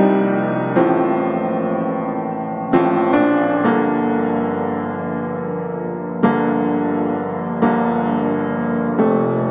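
Background piano music: slow chords struck every second or two, each left to ring out and fade.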